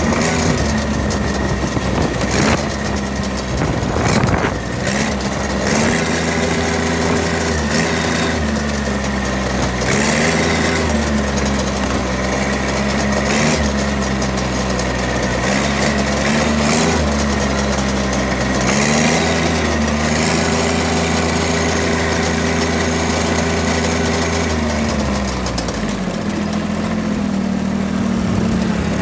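Diesel engine of a 26 hp Ford riding lawn mower running while driving, its pitch rising and falling several times as the engine speed changes, dropping off about four seconds before the end and then picking back up.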